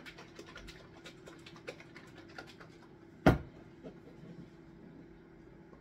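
Small plastic flip-top shaker cup of beaten eggs and spices being handled, with faint scattered clicks and rattles, then one sharp loud plastic snap a little past halfway as the lid is flipped open. A steady low hum runs underneath.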